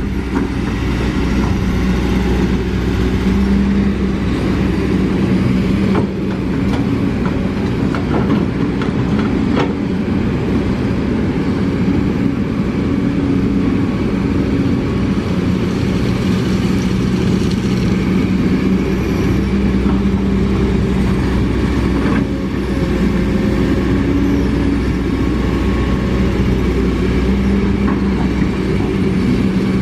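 Kobelco SK200 hydraulic excavator's diesel engine running steadily under working load as the machine digs and swings, its note strengthening and easing repeatedly. A few sharp knocks come between about six and ten seconds in.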